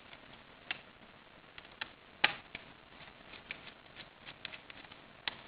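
Scattered small clicks and taps of a screwdriver backing out the two small screws of a Fujitsu 6110 laptop's memory access cover, with one sharper click a little past two seconds in.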